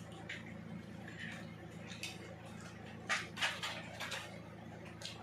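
Close-up eating sounds of a person eating lato (sea grapes): a quick cluster of short wet clicks and smacks about three seconds in, over a steady low hum.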